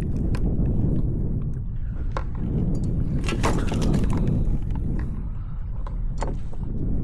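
Low steady rumble with scattered clicks and knocks, thickest a little past the middle, from a speckled trout being handled and measured in a kayak.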